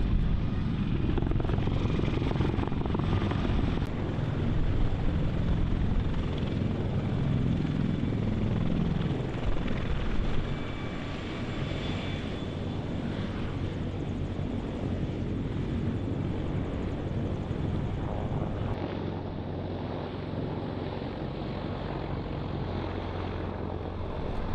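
CH-53 heavy-lift helicopter running loud and steady, its rotors and turbines close by. The sound eases off somewhat about ten seconds in.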